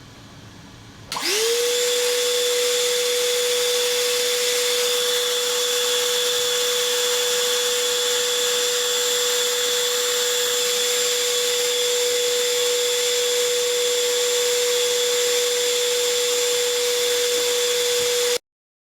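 Ridgid cordless NXT wet/dry vacuum switched on about a second in, running on fully charged 4 Ah batteries. Its motor whine rises quickly and settles into a steady high-pitched whine over a loud rush of air. The sound cuts off abruptly near the end.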